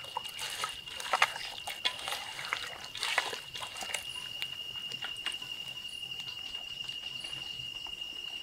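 Wet squelching and clicking of hands mixing marinated chicken and fried onions in a metal pot for the first three seconds or so, over a steady high-pitched trill of insects that goes on throughout.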